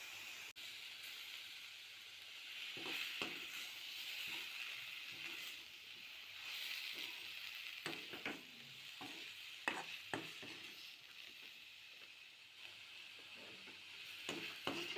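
Soya chunks frying in masala in a pan, sizzling steadily while a spatula stirs them, with scattered knocks of the spatula against the pan.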